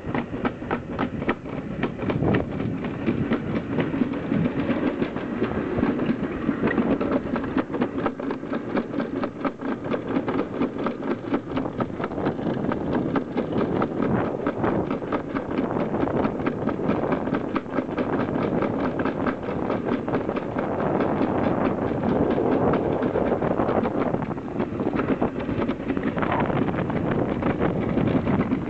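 Summer toboggan sled running fast down a stainless-steel trough track: a steady rolling rumble with a rapid, even clatter.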